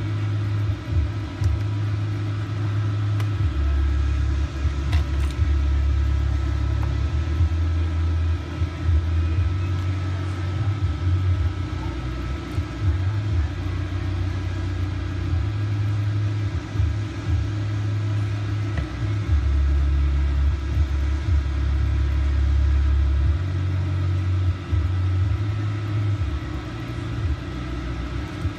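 Continuous low rumble that shifts between a deeper and a slightly higher pitch every few seconds, with a few faint steady high tones above it.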